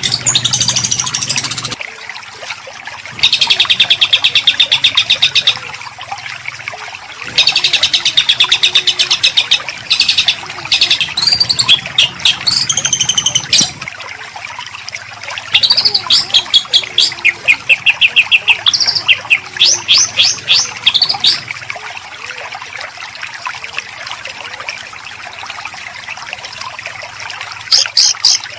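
Songbird singing in dense, harsh rapid-fire runs: fast trills and quick series of sharp repeated notes in bursts of a few seconds, with short pauses between.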